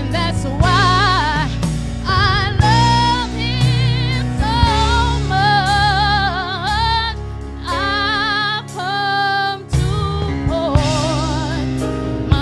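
Gospel song: a singer holds long, wavering notes over a band with a steady beat.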